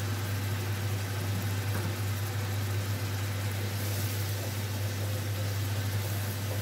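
Kitchen extractor fan running with a steady low hum, over the faint sizzle of ground beef simmering in wine in a saucepan. About four seconds in, a wooden spoon briefly stirs the pan.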